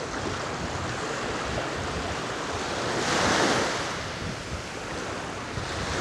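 Small Black Sea waves breaking and washing up onto a sandy shore, with one wave swelling louder about three seconds in.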